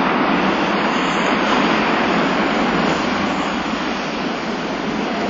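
Steady, even noise of city street traffic with a streetcar running on the street track.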